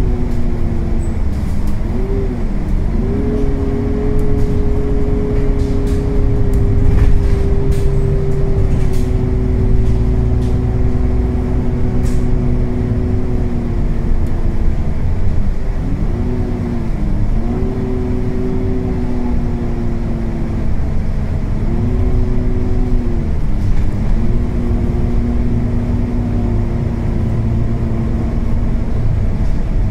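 Inside a moving Volvo B9TL double-decker bus: the Volvo D9B engine and Voith DIWA automatic gearbox running under a loud radiator cooling-fan drone. The drone holds a steady pitch for long stretches and dips then recovers a few times.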